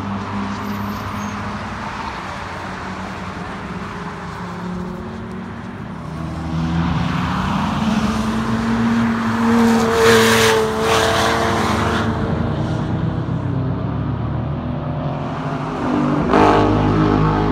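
Race car engines running on a road course. One car comes up, passes close about ten seconds in with its engine growing louder and then fading, and another passes close near the end.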